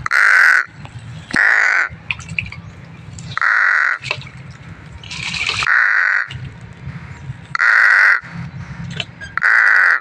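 A crow cawing: six loud, harsh caws of about half a second each, a second and a half to two seconds apart.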